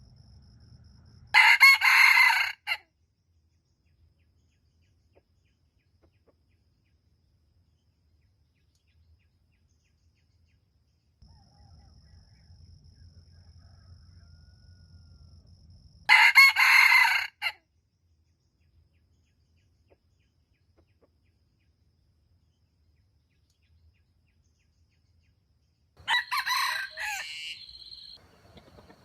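Wild junglefowl rooster crowing three times: short, clipped crows about a second and a half long, roughly fifteen and then ten seconds apart.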